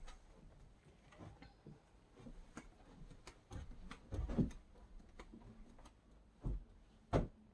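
Scattered light clicks and knocks, with louder thumps about four seconds in and twice near the end: objects and furniture being handled and moved around a room.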